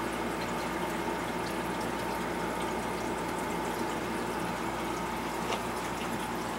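Steady rush of circulating water and pump hum from a running reef aquarium's filtration system, even and unbroken, with one faint tick about five and a half seconds in.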